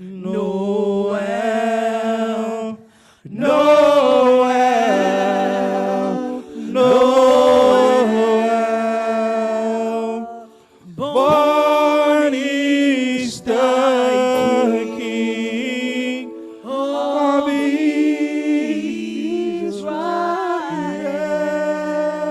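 Unaccompanied worship singing: voices holding long, sliding phrases a few seconds each, with brief breaths between them.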